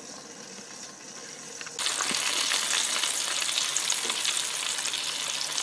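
Freshly air-fried T-bone steak sizzling in its hot fat and juices in the open air fryer basket. The sizzle starts suddenly about two seconds in, after a faint hum, and then keeps up a steady crackle.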